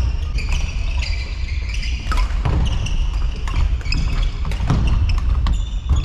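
Badminton rally: rackets striking the shuttlecock, a sharp smack every second or so, over the steady low rumble of a sports hall.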